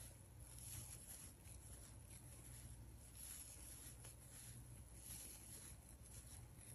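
Near silence: faint rustling and scraping of yarn being worked with a crochet hook, over a low steady hum.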